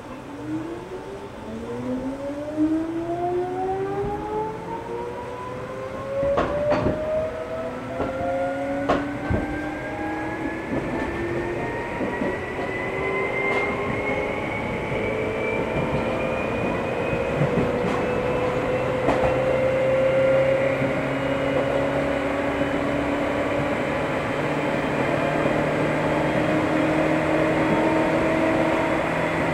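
Seibu 2000 series field-chopper-controlled electric multiple unit (motor car KuMoHa 2465) pulling away and accelerating, heard from inside the car. Its traction motor and gear whine rises steadily in pitch over the rumble of the wheels, with a few sharp clicks in the first several seconds.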